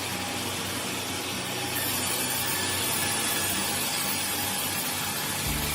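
Heavy machinery running steadily: an even mechanical noise over a low hum, with a deeper, stronger hum coming in near the end.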